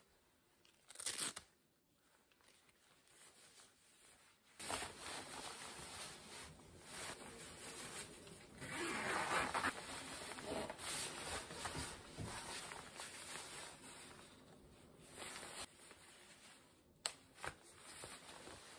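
Rain coat's synthetic fabric rustling and swishing as it is handled and moved about on the body. There is a brief louder burst about a second in and a couple of sharp clicks near the end.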